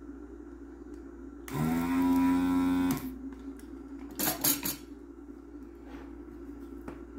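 A desoldering gun's vacuum pump runs for about a second and a half: a loud, steady pitched buzz with a hiss of sucked air that cuts off abruptly. This is solder being drawn off the pads of the cracked Rifa filter capacitor being removed. About a second later come a few brief clatters.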